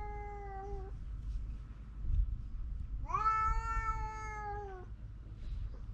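Stray cat meowing: the end of one long meow, then a second long meow about three seconds in that lasts nearly two seconds and drops in pitch as it fades. A low rumbling noise runs underneath.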